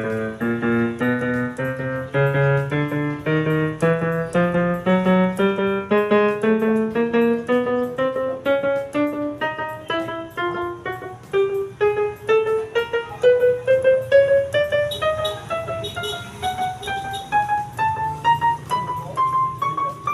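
Yamaha PSR-E363 keyboard sounding one key at a time up the keyboard, about three notes a second in a steadily rising chromatic run from the low end toward the top. It is a key-by-key check for keys that fail to respond.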